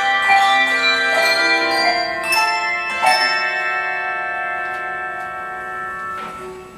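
English handbell choir ringing a tune in many clear bell tones. About three seconds in, a chord is rung and left to sound, fading slowly.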